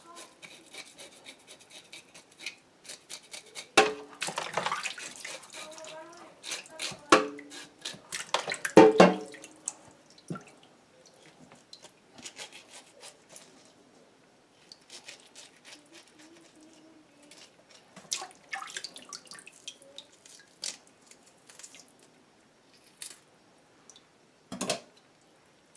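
Water splashing and dripping in a plastic basin in a sink as raw Banga Mary fish are handled and cut into fillets with a knife. The splashes come in scattered bursts, loudest around four and nine seconds in.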